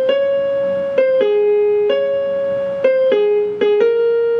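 Electronic keyboard played with a piano sound: a slow melody of single held notes, one at a time, stepping back and forth between a few neighbouring pitches.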